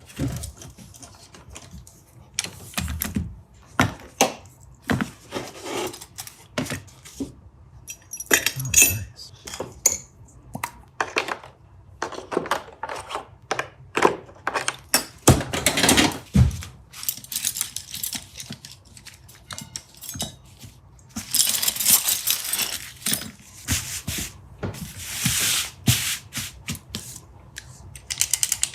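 Small metal parts and hand tools clicking, clinking and knocking on a workbench as a metal prop revolver is taken apart. There are two longer, noisier stretches in the last third.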